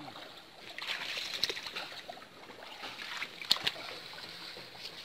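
Pond water splashing and sloshing as a mosquito net is hauled through it by hand, with a sharp splash about three and a half seconds in.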